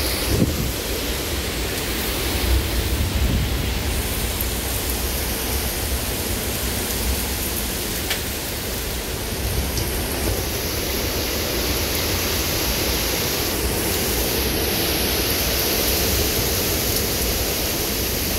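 Derecho storm: high wind and heavy driving rain make a steady, loud rush of noise with no let-up.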